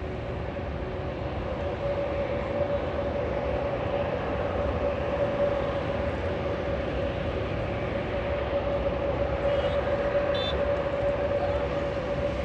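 Aircraft engine noise: a steady hum with one held whining tone, growing a little louder after the first couple of seconds.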